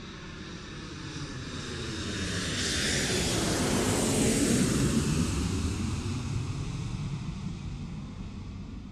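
Airplane flying over: its engine noise swells to a peak about halfway through, then fades away.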